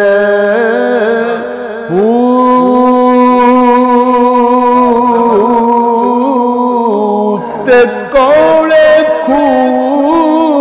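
A man's voice singing a Punjabi Sufi kalam unaccompanied, holding long wavering notes. He breaks for breath about two seconds in and again a little past the middle.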